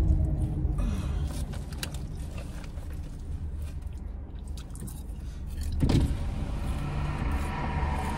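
Low, steady rumble of a car's engine and running gear heard inside the cabin, swelling about six seconds in, with scattered small clicks and rustles.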